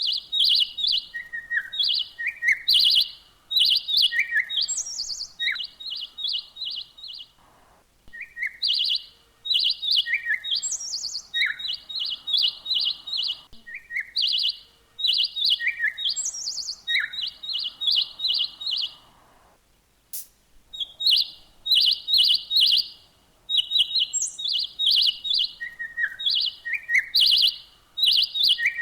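Songbird chirping in fast runs of short high notes and trills, mixed with quick downward-swooping calls, with two brief pauses.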